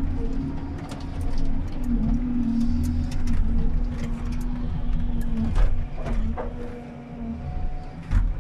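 Komatsu 931.1 harvester's diesel engine and hydraulics running under load, heard from inside the cab, with a steady hum that fades out near the end. Several sharp knocks and cracks in the second half come from the harvester head working a stem.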